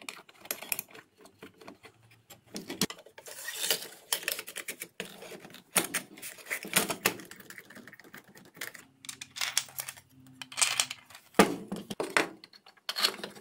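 Black plastic and aluminium parts of a router-table fence being handled and fitted together: irregular clicks, knocks and clatter of hard plastic against metal.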